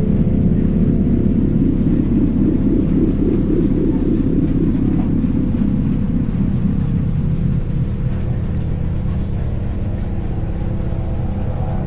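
Background music of deep, held low notes, steady throughout.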